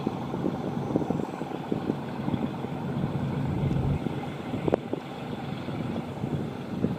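Boat engine running steadily with a low, uneven sound; a single sharp click a little under five seconds in.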